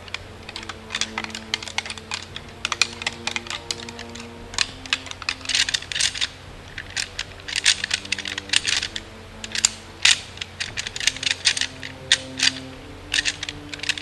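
Deer rattling: real deer antlers and a rattle bag rattled in turn, an irregular run of sharp clicks and clacks as tines knock and grind together, coming in bunches.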